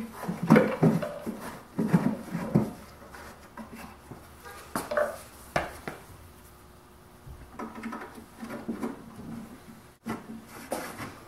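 Knocks and scraping of a salvaged shop vac blower unit being handled at an opening in a wooden sander cabinet, several knocks early on and two sharp ones about five seconds in, then softer brushing of sawdust near the end.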